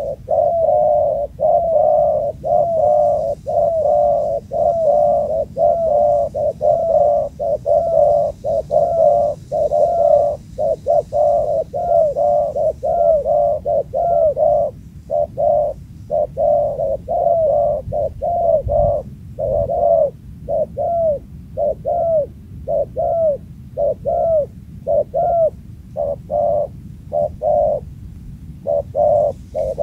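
Spotted dove (tekukur) cooing in a fast, unbroken series of short coos, about two a second, pausing briefly a few times.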